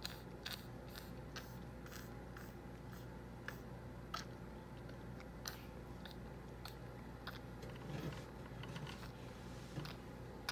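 Toddler eating orange segments: faint, irregular wet clicks and smacks of chewing and sucking, about one or two a second, over a steady low hum.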